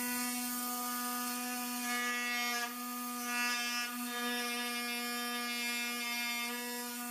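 Pneumatic engraving pen (air scribe) buzzing steadily as its tip chips away hardened glue and gap filler from between fossil skull bones.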